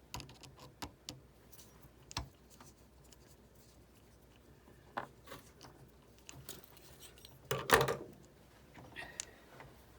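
Scattered small clicks and taps of hands fitting a small part into a Sizzix Big Shot die-cutting machine during disassembly, with one louder knock about three-quarters of the way through.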